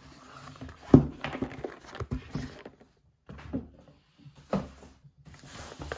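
Cardboard reel box being picked up and handled on a table: a sharp knock about a second in, then scattered taps, scrapes and rustles.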